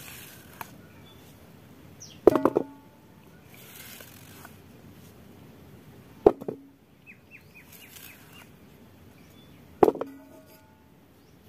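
Strips of raw mango dropped into a stainless steel vessel, each landing with a clang and a short metallic ring, three times about four seconds apart.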